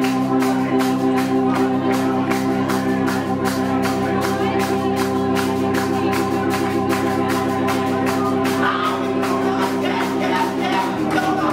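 Live band playing: an organ holds sustained chords over a steady drum beat of about four strokes a second. The organ chord shifts about a second before the end.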